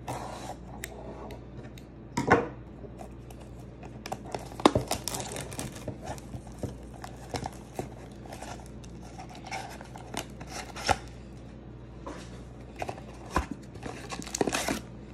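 Scissors snipping the plastic shrink-wrap on a cardboard booster bundle box, then the wrap crinkling and tearing as it is pulled off and the box is opened. It comes as an irregular run of sharp clicks and rustles, with a few louder snaps.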